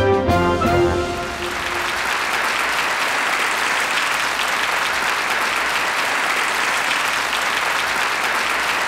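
Band music that stops about a second in, giving way to a studio audience's steady applause.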